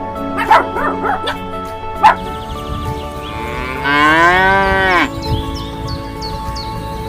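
A cow mooing once, a long call about four seconds in that rises and then falls, after a few short dog barks in the first two seconds. Steady background music runs underneath.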